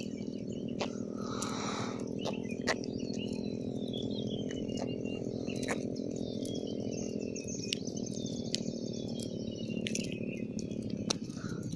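Steady low motor hum, with a run of high whistles that each slide downward and scattered sharp clicks.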